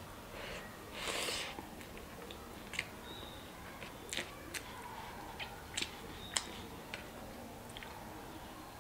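A person chewing mouthfuls of mutton curry and rice, with scattered sharp wet clicks and a brief louder rustle about a second in.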